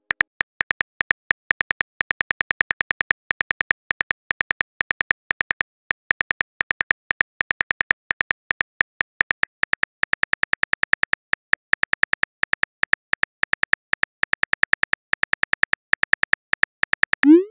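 Keyboard click sound effects from a texting-story app, a rapid, uneven stream of short ticks as a message is typed out letter by letter, ending near the end with a short rising swoosh as the message is sent.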